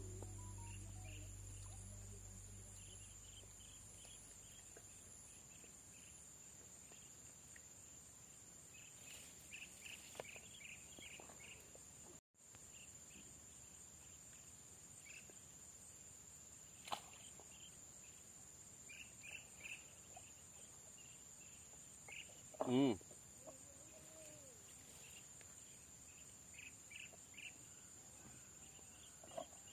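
Quiet outdoor ambience of insects shrilling steadily at a high pitch, with short chirping trills now and then. A brief louder animal call comes about three-quarters of the way through. Background music fades out in the first few seconds.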